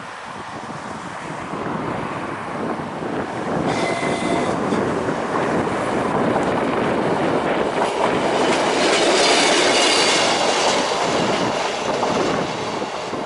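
An unseen train approaching along the railway line, its wheel and rail noise growing steadily louder, with a brief high tone about four seconds in and wheel squeal around the ninth and tenth seconds.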